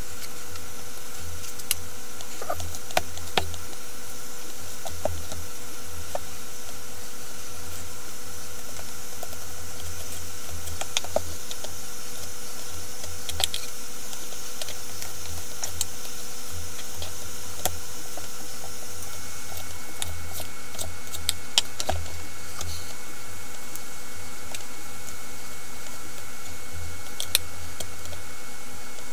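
Boning knife and raw beef worked on a plastic cutting board: scattered light clicks and taps as the blade and meat meet the board while sinew is trimmed off, over a steady hum.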